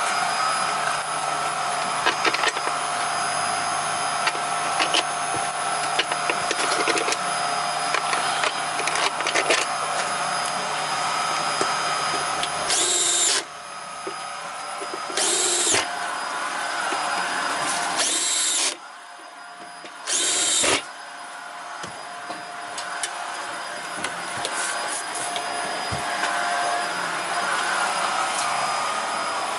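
A steady whirring motor noise, like a vacuum running, with four short bursts from a power screwdriver about halfway through, spread over about eight seconds.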